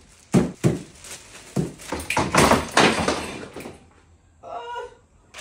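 Wooden boards and workshop clutter being handled and put down: a few sharp knocks, then about a second and a half of clattering and rattling. Near the end comes a short bird call.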